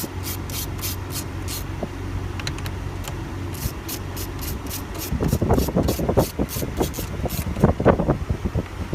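Ratchet wrench with a 10 mm socket clicking as it backs off the shifter assembly's nuts, over the steady hum of the car's engine idling. From about five seconds in, louder metallic rattling and scraping of the tool and parts.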